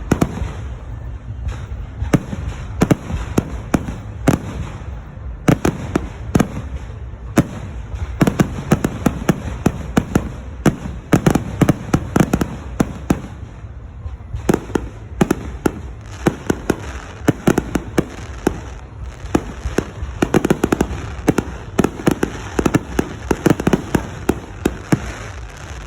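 Fireworks display: many aerial shells bursting in quick succession over a steady low rumble, the bangs coming thickest about eight to thirteen seconds in and again around twenty to twenty-four seconds in.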